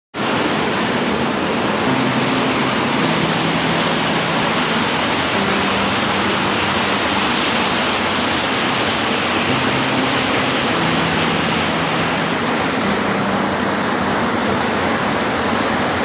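Steady rain falling, a dense, even hiss with no breaks. Faint low hums come and go underneath.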